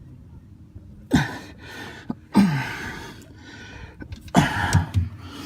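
A man's strained grunts and gasping breaths, about four in quick succession, as he heaves on a socket wrench to break loose a tight, rusty starter-motor bolt nut.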